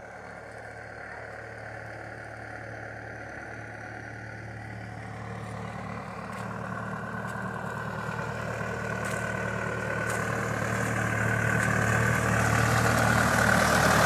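Farm tractor's diesel engine running as it drives up the track toward the listener, growing steadily louder as it approaches.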